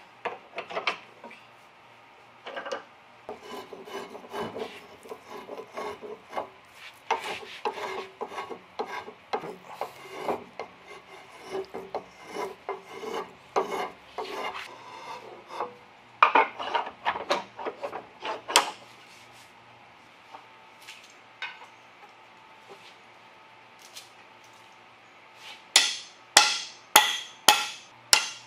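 Hand-tool strokes rasping and shaving a wooden baseball bat handle, in repeated rhythmic runs. After a quieter stretch, a quick series of sharp, ringing taps comes near the end.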